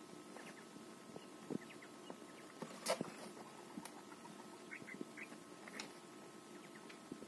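Domestic quails pecking and scratching in a hay- and sand-lined cardboard box: scattered light taps and rustles, one sharper knock about three seconds in, and a few short soft calls around five seconds in.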